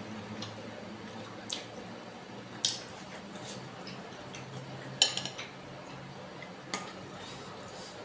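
Utensils knocking against a bowl of bakso soup: a handful of sharp clinks a second or so apart, the loudest about five seconds in, followed by a few lighter ones, over a faint low hum.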